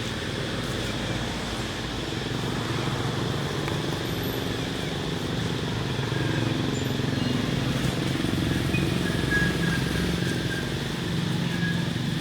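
An engine running steadily with a low, even hum, getting slightly louder about halfway through.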